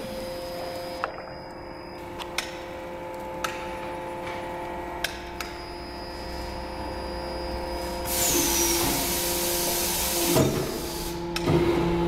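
Automatic rotor aluminium die casting machine running: a steady motor hum with a few sharp clicks, then a loud hiss starting about eight seconds in and lasting about two seconds, followed by a couple of heavy knocks near the end as the rotary mould table moves.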